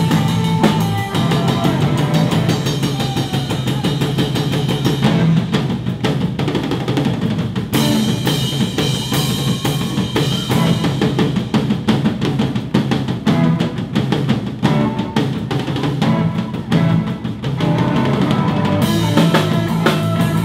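Rock drum kit played fast and hard, with bass drum, snare and rolls, over other band music.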